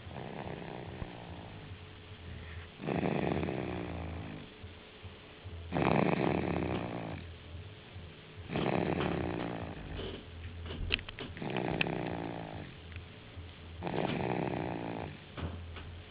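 Snoring: six loud, regular snores, one about every three seconds, with a few faint clicks in the middle of the run.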